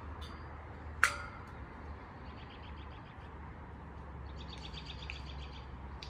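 Songbirds trilling in the trees: a faint rapid trill about two seconds in and a louder one just after four seconds. A single sharp knock about a second in, over a low steady rumble.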